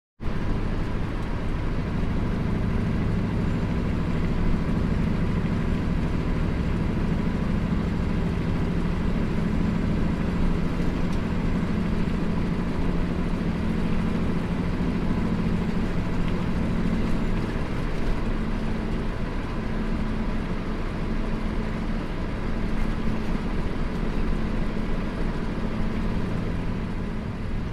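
Kenworth road train's heavy diesel engine running at a steady cruise, a constant low drone heard from inside the cab, with tyre and road noise under it.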